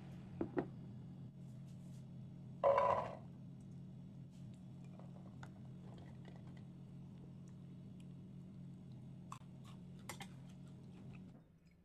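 Kitchen handling sounds over a low steady hum. There are two sharp clicks at the start, a short loud rattle about three seconds in, and light scattered clicks later, as peeled garlic cloves are handled in a metal mesh strainer and tipped into a bowl.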